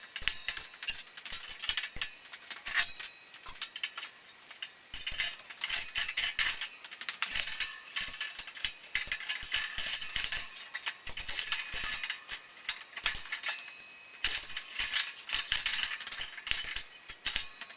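Electric arc welding on steel, crackling and sputtering in irregular spurts with short pauses between beads.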